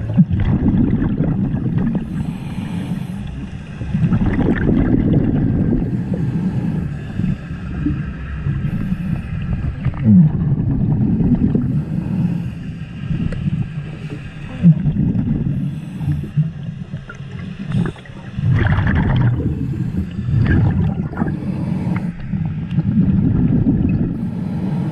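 Scuba diver breathing through a regulator underwater: low bubbling rumbles of exhaled air come in surges every few seconds.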